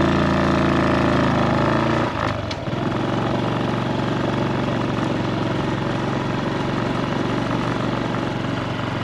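Honda Super Cub's small single-cylinder engine running at low speed. About two seconds in there is a dip and a click, and then the engine settles to a steady idle.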